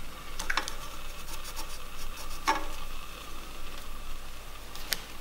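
Light scratching of a marking tool drawn along a long steel straightedge across the face of a wooden timber, with a few sharp clicks and taps as the rule is set down and moved.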